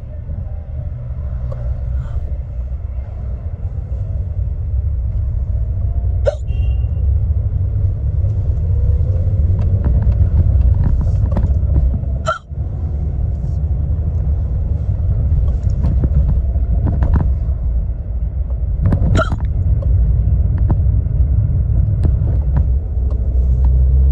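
A woman's deep hiccups: three loud, sudden hiccups roughly six seconds apart, with a few fainter ones between, over the steady low rumble of a car cabin on the move.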